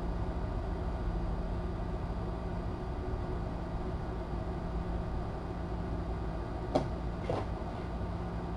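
Steady low background hum of a room's machine noise, with two short sharp clicks about half a second apart near the end.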